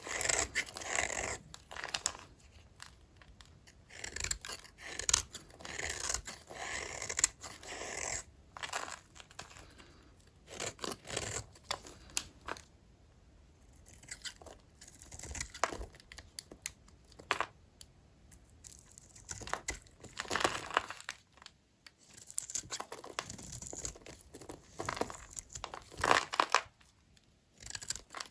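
A blade cutting through dry bars of old hotel soap: crisp crunching and crackling strokes that come in bursts, with short pauses between cuts.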